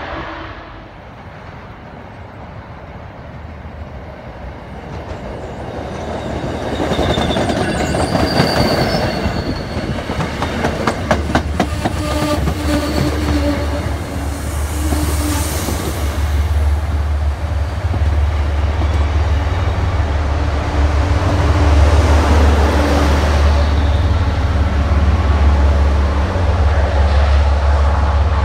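MBTA commuter rail train passing close: diesel locomotive and bi-level coaches rolling by with wheels clicking over rail joints and a few brief thin wheel squeals. A steady deep diesel rumble builds from about halfway through and stays loud.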